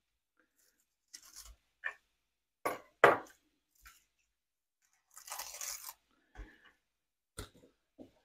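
Knife crunching through a raw Vidalia onion on a plastic cutting board: a handful of separate quiet crunches and knocks, with a short rustle of dry onion skin around the middle.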